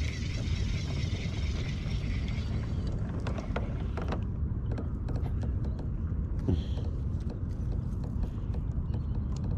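Small spinning reel being wound on a slow lure retrieve. A steady high whir lasts the first couple of seconds, then scattered clicks and ticks follow, over a steady low rumble.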